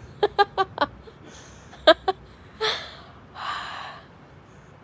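Several quick, short squeaks or clicks close to the microphone, a sharp click about two seconds in, then two breathy huffs of exhaled breath.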